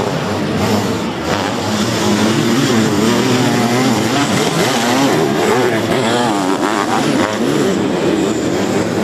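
Sidecar motocross outfits' engines racing past, revving hard with the pitch rising and falling as the riders open and close the throttle through the corners.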